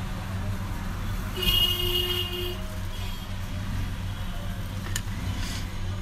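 Steady low hum of background road traffic, with a vehicle horn sounding for about a second, starting about a second and a half in. A short click near the end.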